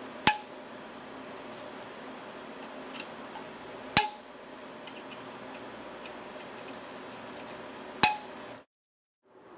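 Torque wrench clicking three times, about four seconds apart, each click with a short metallic ring, as the clamp screws reach the set torque of 8 to 10 inch-pounds. The sound cuts off completely shortly before the end.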